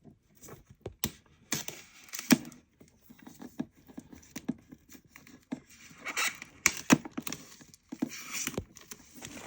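Unboxing handling noises: packaging being handled and opened, with irregular sharp clicks, knocks and short bursts of rustling and scraping. The loudest knock comes a little over two seconds in.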